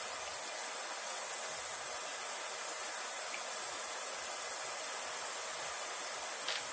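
Ultrasonic cleaner running, a steady even hiss with no change in level, with a faint tick a little over three seconds in.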